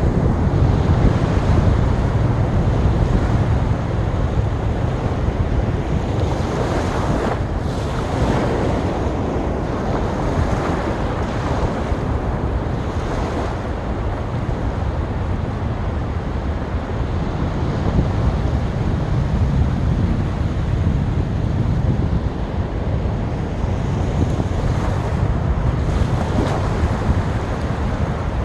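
Sea waves breaking and washing up on a beach in a steady rush, swelling now and then as a wave comes in, with a low wind rumble on the microphone.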